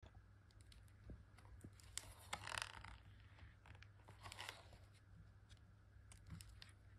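Stiff card pages of a pop-up picture book being opened and turned by hand: quiet taps and clicks, with two short rustles of card about two and a half seconds in and again about four seconds in, over a faint low hum.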